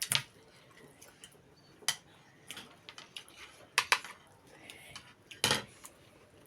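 Cutlery clinking against dishes during a meal: a handful of sharp clinks spaced a second or two apart.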